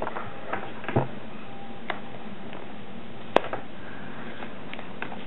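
Plastic blister packaging of an SD card being pried open by hand: a few small scattered clicks and crinkles, with one sharper click about three and a half seconds in, over a steady hiss.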